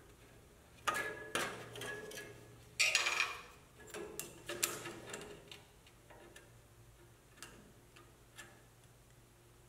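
Clicks and taps of a 3D-printed plastic insert and a metal combination square handled on a cast-iron bandsaw table, with a cluster of louder knocks about three seconds in, then lighter ticks about a second apart.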